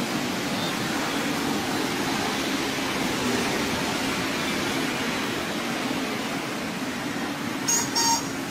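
A train running on rails: a steady rushing rumble of wheels on track, with two short, loud, high-pitched squeals near the end.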